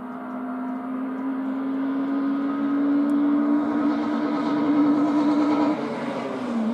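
Rally car engine held at high, steady revs, growing louder as it approaches, its pitch creeping slightly upward; about six seconds in the note drops and quietens.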